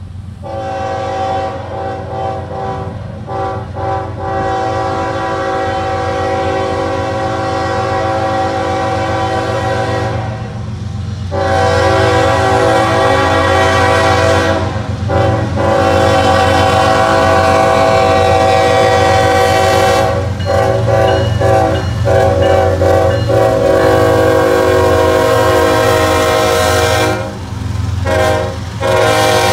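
CSX freight diesel locomotive's air horn sounding a chord of several notes in a series of long blasts for the grade crossing, broken by short gaps, over the locomotive's steady low engine rumble as the train approaches and passes.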